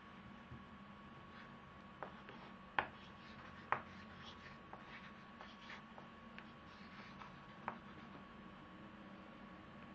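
Drawing on paper: short scratching strokes and a few sharp taps at irregular intervals, over a steady faint electrical hum.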